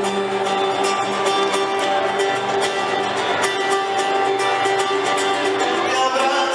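Live band music: an instrumental passage without singing, led by guitar over a steady beat.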